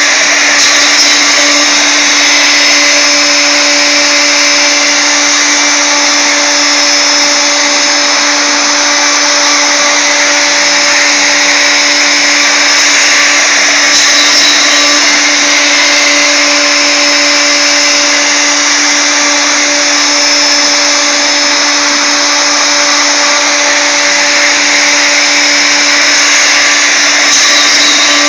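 CNC router spindle, a clamped wood router, running at steady high speed with a small ball-nose bit carving wood on the finishing pass: a loud, unchanging whine over a hiss of cutting.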